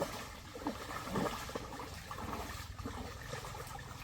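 Water trickling and sloshing, with a few light splashes, the loudest about a second in.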